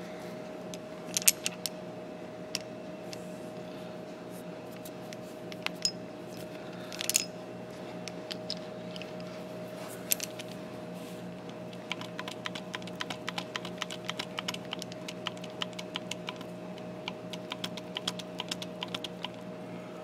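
Small clicks and taps of a hydraulic battery-terminal crimper and a copper lug terminal being handled at a bench vise: a few scattered clicks, then a quick run of them through the second half, over a steady low hum.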